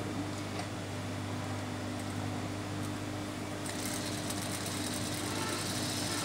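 Industrial sewing machine running with a steady motor hum while fabric is fed under the presser foot. A brighter hiss joins a little over halfway through.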